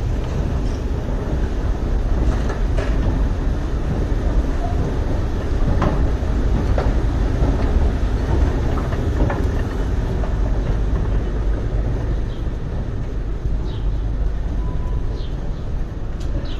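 Steady low rumble of a subway station's machinery and ambience, with a few scattered clicks and a short faint beep near the end.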